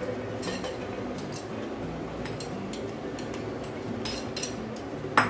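Pomegranate seeds poured from a bowl into a stainless-steel mixer-grinder jar: light scattered ticks and taps of seeds and the bowl against the jar, with one sharper knock just before the end.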